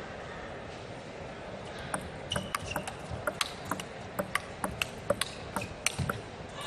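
Table tennis rally: the plastic ball clicking sharply off the paddles and table, several hits a second, starting about two seconds in after a stretch of low hall noise while the serve is prepared.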